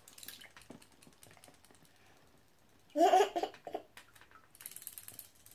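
Light plastic clicks and taps as small toy robotic fish are handled at a glass bowl of water. A child's short voiced sound comes about three seconds in.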